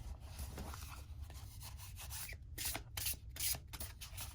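A thick oracle card deck being shuffled by hand: cards rub and slide against each other, then in the second half comes a quicker, irregular run of short card-on-card strokes.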